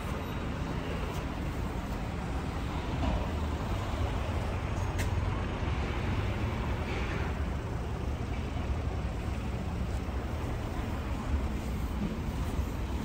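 Steady city street traffic noise: an even low rumble of passing cars.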